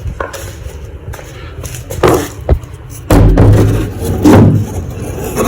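Wooden knocks as foot-rail blocks are set in place: two sharp knocks about two seconds in, then a louder, dense stretch of noise from about three seconds on.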